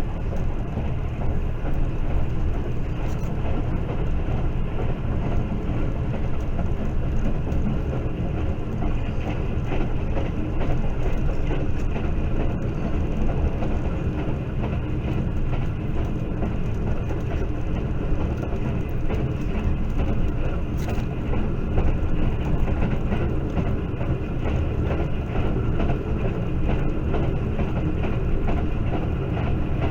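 Passenger train running at speed: a steady rumble of wheels on the track with rattling of the carriage.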